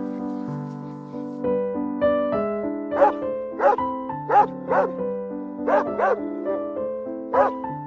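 Gentle instrumental background music with steady held notes, over which an animal gives seven short, sharp calls starting about three seconds in.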